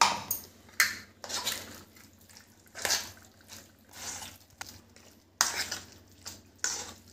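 Metal spoon stirring a wet mushroom mixture in a stainless steel bowl: a series of irregular scrapes and clinks of spoon against bowl.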